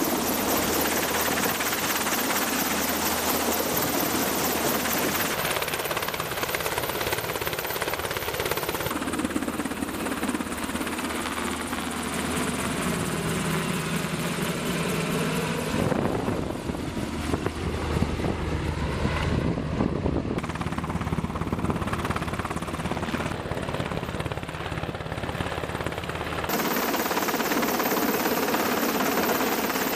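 Sikorsky UH-60 Black Hawk helicopter hovering and flying close by with a sling load, its rotors and twin General Electric T700 turboshaft engines running steadily under load. The sound shifts abruptly in tone several times.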